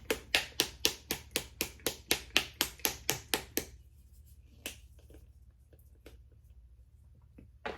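A small dropper bottle of bronzing drops being shaken hard, giving about four sharp clacks a second for roughly four seconds, then a few faint clicks.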